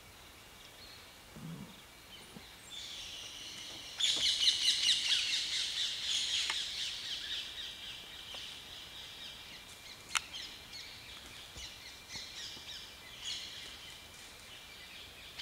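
Birds chattering and chirping rapidly in a dense chorus that starts suddenly about four seconds in and then slowly fades. A single sharp click about ten seconds in.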